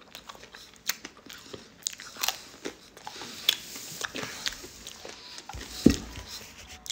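A man chewing a mouthful of crisp piadina pizza crust, with irregular crunches and wet mouth clicks.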